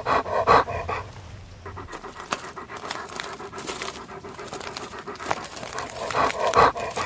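A search dog panting hard as it moves, with quick scuffing and crunching steps over debris.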